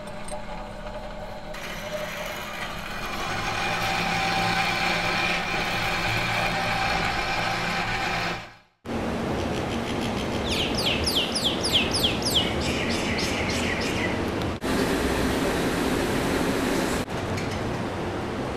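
Outdoor city ambience: a steady hum of traffic that cuts out briefly a little before halfway, then a quick run of high falling chirps lasting about two seconds, and later a stretch of hiss.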